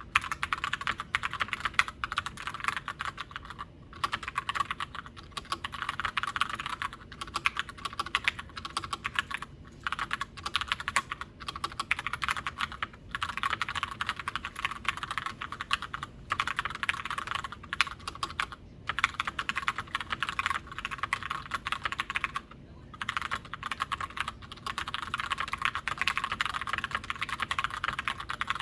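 Fast, steady typing on a tenkeyless mechanical keyboard with tactile Gateron Brown switches, a dense run of key clicks and clacks broken by a few brief pauses.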